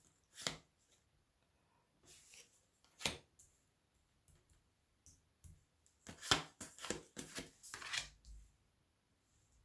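Tarot cards being handled on a table: scattered short swishes and taps, with a busier run of them about six to eight seconds in.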